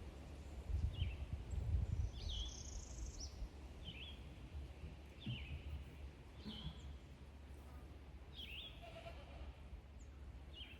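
A bird calling with short, down-slurred chirps every second or two, over a low rumble of wind that is strongest at the start.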